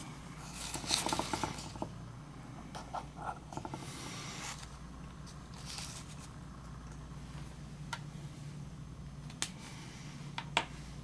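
Felt-tip marker scraping and squeaking across paper as an arrow is drawn, strongest in the first couple of seconds, with a few short strokes after. Several faint clicks near the end over a steady low hum.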